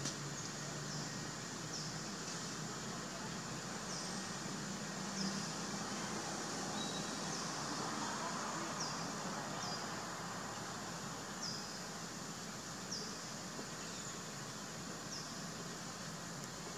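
Outdoor woodland ambience: a steady hiss, with a short, high, falling chirp repeated about once a second and a faint low hum that fades about halfway through.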